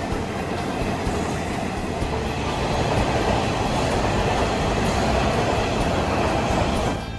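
Electric train running past, a steady rush of wheels on the rails that grows louder about halfway through and cuts off just before the end.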